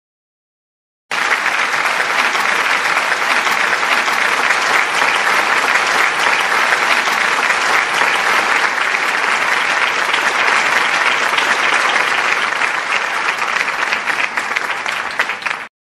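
Applause: many hands clapping steadily in a dense, continuous patter. It starts suddenly about a second in and cuts off abruptly just before the end.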